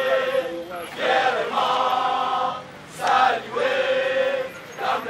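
A crowd of protesters chanting together in unison, in three long, held phrases.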